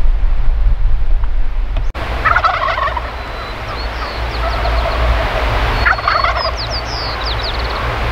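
Wild turkey gobblers gobbling twice, about two seconds in and again about six seconds in, over steady wind rumble on the microphone.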